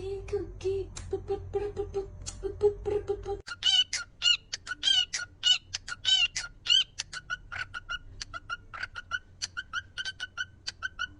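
Pet parrot calling. First comes a run of short low notes, about three a second. From about three and a half seconds in, it switches to a rapid series of clicks mixed with short, higher chirping calls.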